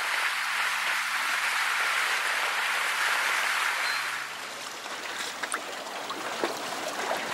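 Steady rushing hiss of water around a boat on open water, which drops off about four seconds in, followed by a few light clicks.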